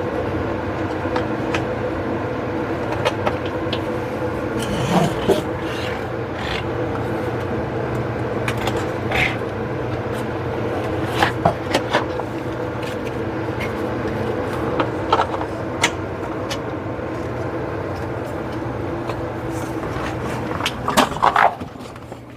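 A steady low machine hum runs under scattered clicks, knocks and scrapes as a metal LED grow-light fixture and its hanging hardware are handled; a cluster of louder knocks comes near the end, just before the hum cuts out.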